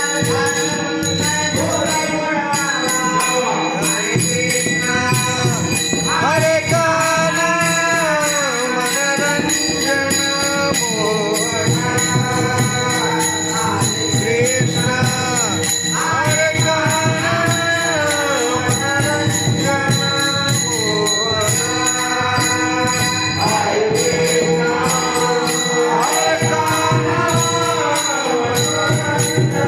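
Marathi devotional bhajan: a singing voice carries a gliding, ornamented melody over a steady drone, with small hand cymbals jingling in time.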